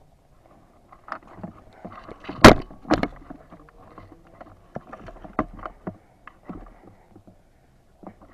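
Irregular rustling and short clicks of a player moving on foot through brush with gear. There is one loud, sharp knock about two and a half seconds in and a smaller one just after.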